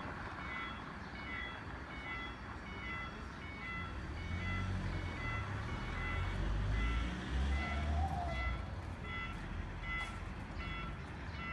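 Railway level crossing warning alarm sounding repeating beeps, about two a second, as the crossing closes to road traffic for an approaching train. A low rumble swells and fades in the middle.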